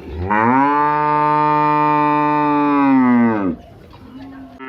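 A bovine mooing: one long, steady-pitched call of about three seconds that drops in pitch as it ends, followed by a quieter, low call near the end.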